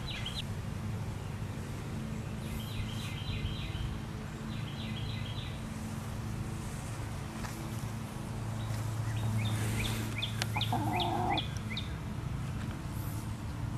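New Hampshire Red hen calling in two runs of short, high chirping notes, about three seconds in and again near ten seconds, with one lower call near the end, over a steady low hum.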